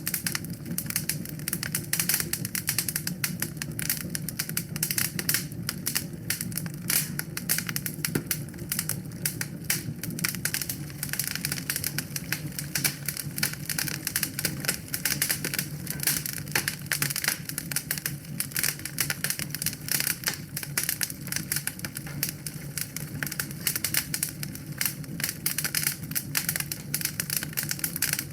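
Wood fire crackling in a fireplace: dense, irregular pops and snaps over a low, steady rumble.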